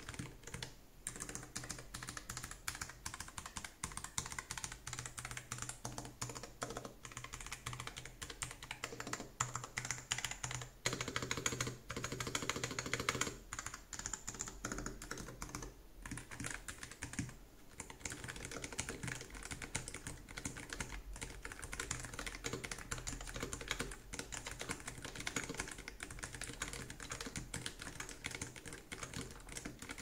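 Typing sound test on a Nuphy Air60 HE low-profile Hall-effect keyboard with Gateron magnetic Jade-series switches: a fast, continuous run of keystroke clicks, busiest and loudest around eleven to thirteen seconds in.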